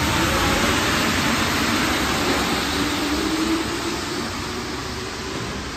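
MP73 rubber-tyred metro train pulling out of the station and running away: a steady rush of tyres and running gear with a low hum, fading over the last couple of seconds as it leaves.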